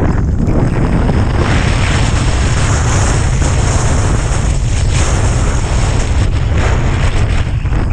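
Wind rumbling loudly on the microphone of a snowboarder's camera while riding downhill, over an uneven hiss of the snowboard sliding through fresh snow.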